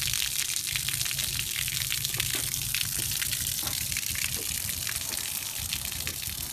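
Water gushing steadily in a stream from the bottom of a flooded sailboat's hull and splashing onto concrete: floodwater draining out of the boat.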